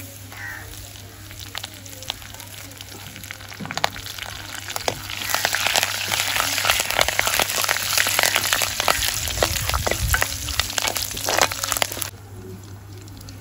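Hot oil sizzling and crackling in a clay pot as curry leaves and onion fry for a South Indian tempering, with clicks of a steel ladle stirring. The sizzle is faint at first, comes up loud about five seconds in, and cuts off suddenly about a second before the end.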